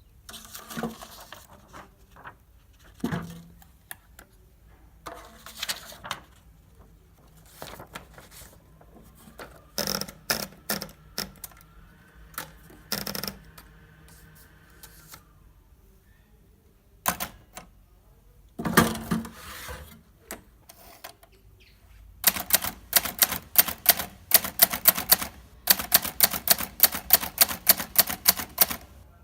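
Hermes 3000 portable typewriter: scattered clicks and clunks of its mechanism being worked for about twenty seconds, then steady fast typing at about five keystrokes a second, with one short pause.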